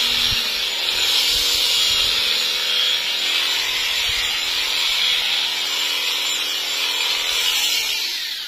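Electric sheep-shearing clippers running steadily as the cutter works through thick fleece: a constant hissing buzz over a faint motor hum, dying away right at the end.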